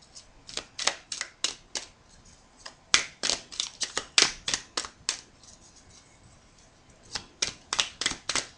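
Small oracle cards being shuffled by hand, a quick run of crisp card flicks about four a second, in three spells with short pauses between.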